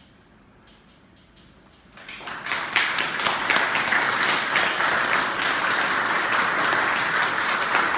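A couple of seconds of near silence with a few scattered claps, then an audience breaks into applause about two seconds in and keeps clapping steadily.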